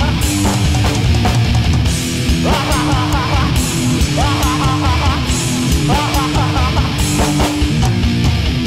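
Loud heavy rock music with electric guitar and a steady beat.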